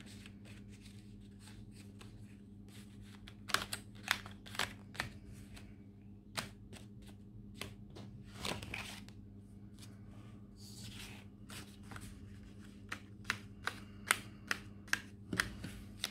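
Planner pages being handled and pressed onto the plastic discs of a discbound planner: rustling pages and a scatter of sharp clicks, with a quick run of clicks near the end. A steady low hum runs underneath.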